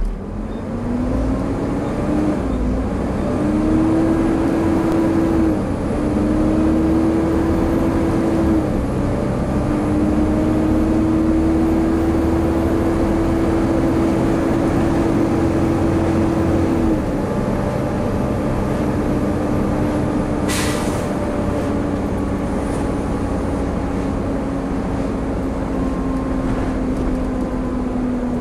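Volvo B7TL bus's cooling fan roaring loudly with the engine as the bus pulls away hard through its ZF Ecomat five-speed automatic gearbox; the fan's whine climbs and dips briefly at each gear change, in sync with the gears. About seventeen seconds in the tone drops as the driver eases off, then sinks slowly, with a single sharp click about two-thirds of the way through.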